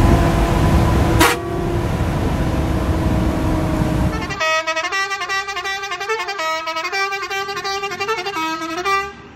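Bus engine and road noise heard from inside the driver's cab, with a sharp click about a second in. About four seconds in the rumble cuts out and a stepping, horn-like melody plays, stopping just before the end.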